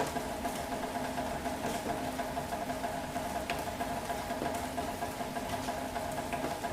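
Steady city rain ambience: an even hiss of rainfall over a constant mechanical hum, with a few faint drip ticks.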